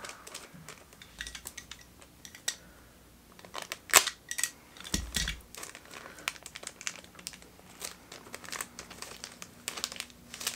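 Mystery-box packaging being opened by hand: irregular crinkling and crackling, with a sharp louder crackle about four seconds in and a dull low thump about a second later.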